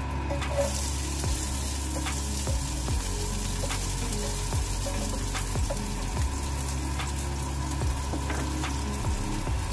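Diced onion sizzling in hot oil in a frying pan, the hiss starting about half a second in as the onion goes in. A spatula stirs it, with scattered clicks of the spatula against the pan.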